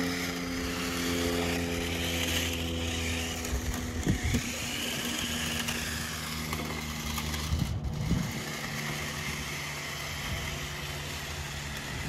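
Electric drive motors of a toy RC stunt car whining as it drives across concrete, the pitch stepping to a new level a couple of times, with short knocks about four and eight seconds in.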